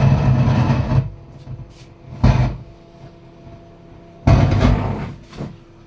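Faulty Stranger PBT701 speaker giving out a loud, noisy hum that cuts off about a second in. It then comes back in two short bursts, the sign of its sound problem cutting in and out.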